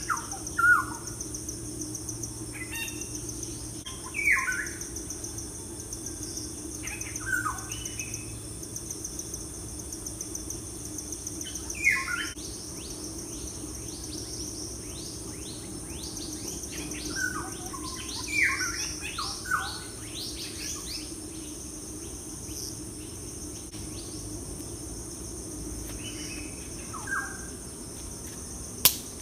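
Wild birds singing, with short warbling and chirping phrases every few seconds and a busier stretch in the middle, over a steady high-pitched insect drone. A single sharp click comes near the end.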